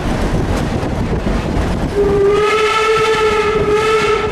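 The locomotive's warning signal sounds one long steady blast starting about two seconds in, over the steady running rumble of the train heard from the cab.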